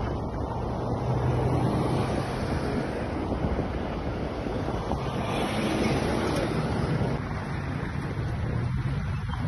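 Vehicles driving along a road: a steady low engine drone under heavy wind rumble on a phone's microphone.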